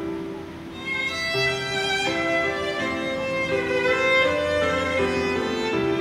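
Background music: a violin playing a melody of held notes, growing fuller about a second in.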